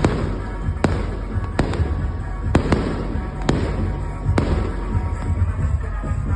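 Aerial fireworks shells bursting in a large display, sharp bangs about once a second, some in quick pairs, with crackling between them over a steady low rumble.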